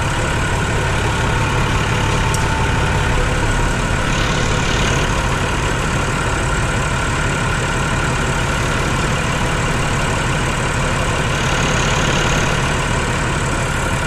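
Tractor diesel engine idling steadily close by.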